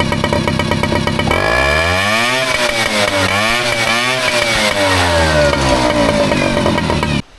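Yamaha 3.5 hp outboard motor, warmed up after repair, idling and then revved up and back down three times before settling to idle again. It keeps running through the revs without stalling. The sound cuts off suddenly near the end.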